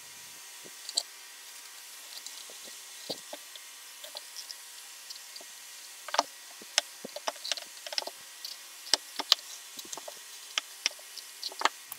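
Scattered light clicks and scrapes of a small steel-tipped leather hand tool working the edges of a leather holster's belt slots, with the holster shifting on a stone slab; the clicks come more often in the second half.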